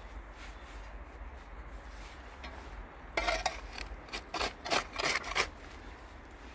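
A flat hand-held shard scraping packed soil along the edge of a granite grave base. After about three seconds come one longer scrape and then about five short rough scrapes.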